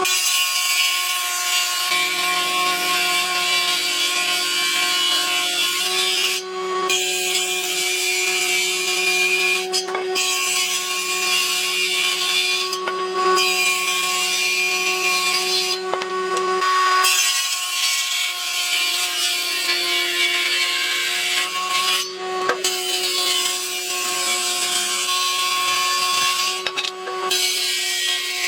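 An electric power tool running steadily on wood, a constant motor whine over a loud hiss of cutting or abrading. It breaks off briefly every few seconds and starts again.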